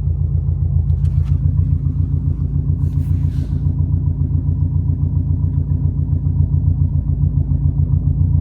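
Subaru WRX's flat-four boxer engine running steadily with an even pulsing beat, its pitch holding level.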